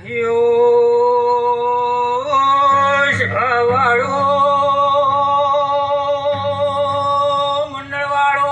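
A man singing a devotional dhun into a microphone, amplified through a PA. He holds a long drawn-out note, wavers through a short run of ornaments about three seconds in, then holds another long note.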